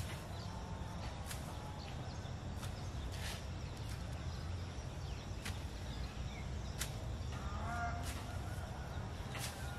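Outdoor rural background: a steady low rumble with scattered short high chirps, and a brief animal call, a livestock bleat, about eight seconds in.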